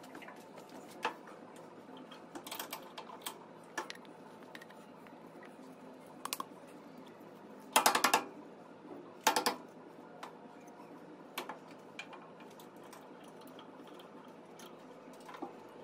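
Scattered clicks and knocks from a stopped wood lathe being handled: the mahogany blank is taken off and fitted again between centres and the tailstock is worked by hand. The loudest knocks come in a quick cluster about eight seconds in, and another comes about a second later.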